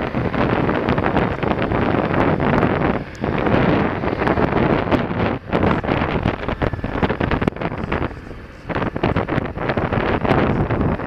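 Wind buffeting the microphone of a camera mounted on a large adventure motorcycle riding a dirt road, with the engine and tyre noise underneath. The noise drops briefly a few times, longest about eight seconds in.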